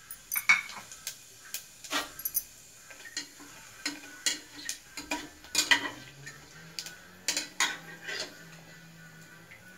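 Metal spatula stirring spices in hot oil in a pressure cooker, knocking and scraping irregularly against the pot's sides and base, with a light sizzle of bay leaf, dried red chillies and cumin seeds frying.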